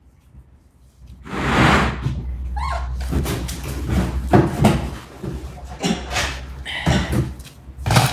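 Knocks, bumps and rustling from handling baby monkeys and things on a table, with a short rising squeak a little under three seconds in; a plastic bag of fruit rustles near the end.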